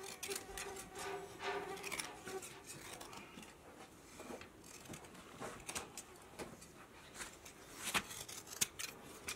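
Hand shears snipping through a sheep's fleece: irregular crisp clicks of the blades closing, a sharper snip about eight seconds in and another just after.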